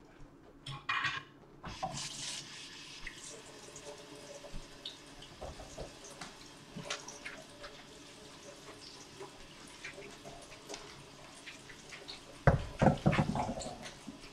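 Kitchen tap running into a sink as dishes are rinsed under it, with light clinks of the dishes. Near the end comes a burst of louder knocks and clatter.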